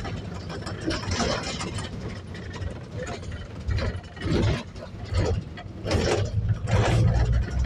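Double-decker bus on the move, heard inside the upper deck: a low engine rumble that swells louder near the end, with irregular knocks and rattles.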